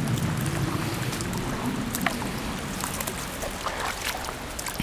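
Small, shallow mountain stream running steadily close by, with a few short clicks.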